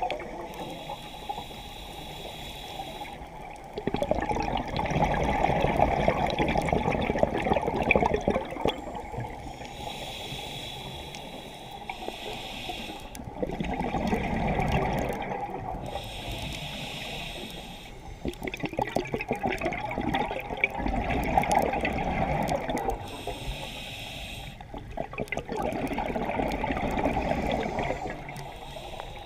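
Scuba diver breathing through a regulator underwater: a hissing inhale alternates with a louder rush of bubbling exhaust bubbles, one breath every five or six seconds.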